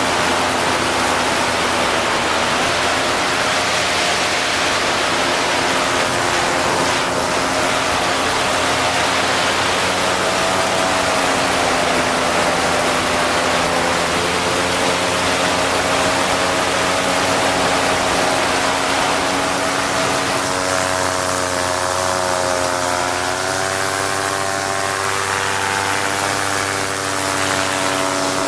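Paramotor engine and propeller running steadily in flight, with wind rushing over the microphone; the engine's pitch rises and falls a little in the last several seconds.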